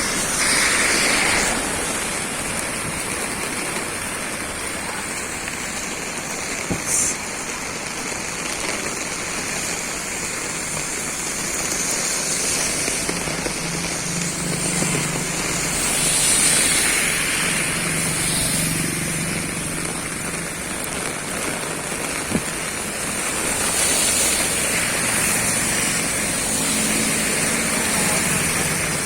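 Steady rain, a continuous hiss that swells and eases a few times, with one short sharp sound about seven seconds in.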